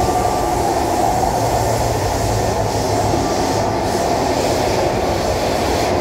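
Steady rumble of a Kawasaki C151 metro train in motion, heard from inside the carriage: wheels on rail and running gear, with a faint brief whine in the first half-second.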